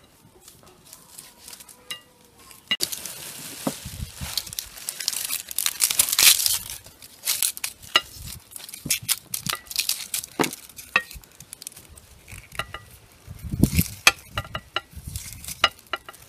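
Onions being peeled by hand with a knife: dry onion skins crackle and a thin plastic bag holding the peels crinkles, loudest a few seconds in. Small clicks and knocks of the knife and onions on glass plates are scattered through.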